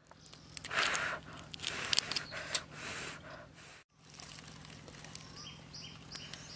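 Rustling and crackling handling noises from food being worked by hand. In the last second or so a bird chirps repeatedly, about three short chirps a second.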